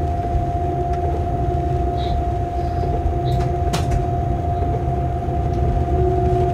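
Locomotive running along the track, heard from inside its cab: a steady low rumble with a steady humming tone over it. One short sharp click a little under four seconds in.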